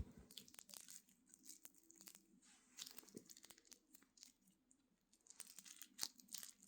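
A homemade squishy filled with water slime being squeezed and handled: faint crinkling with scattered small clicks and crackles.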